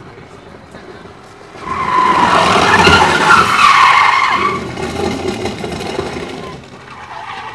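Ford Ka sliding in a spin, its tyres squealing loudly for about three seconds from nearly two seconds in as the engine revs. The squeal then stops and the engine runs on more quietly.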